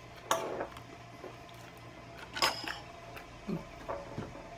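A few separate clinks of cutlery against a plate or dish, about two seconds apart, with two softer knocks near the end.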